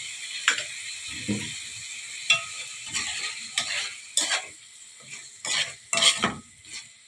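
Chicken livers and peppers sizzling in a metal pan just after a garlic-and-vinegar mixture is poured in; the sizzle dies away over the first few seconds. A metal spoon stirs and scrapes against the pan in irregular strokes.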